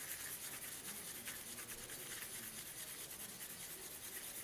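Faint, steady scratchy rubbing of a tool on paper.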